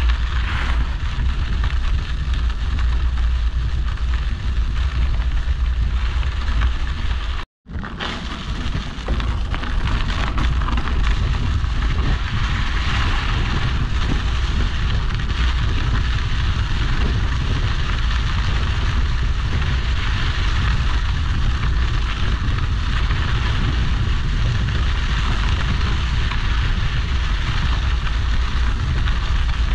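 Mountain bike ridden along a dirt trail, heard from a handlebar-mounted GoPro Hero 8: a steady low wind rumble on the camera's microphone with the hiss and crunch of tyres rolling over dirt and gravel. The sound cuts out completely for a moment about seven and a half seconds in.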